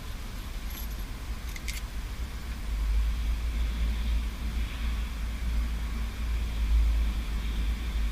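A newly installed MGW short-throw shifter in a C6 Corvette Z06 being worked through the gears as a function test, with a couple of sharp metallic clicks about a second and a half in, over a steady low rumble.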